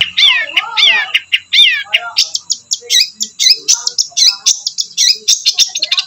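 Caged long-tailed shrike (cendet) singing a fast run of sharp, chattering notes. The first few notes sweep downward, and the notes come much faster after about two seconds.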